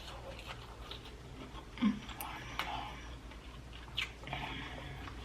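Close-miked eating sounds of spicy prawns being peeled and chewed: wet mouth clicks and small crackles, with a few sharper snaps about two and four seconds in.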